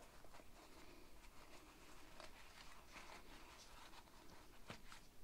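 Near silence, with faint rustling and small scattered clicks of hands opening a soft padded sight case and handling the red dot sight inside.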